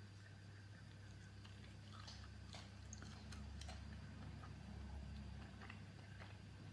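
Faint chewing of a meat-free chicken bite: scattered small mouth clicks and soft squelches over a low steady hum.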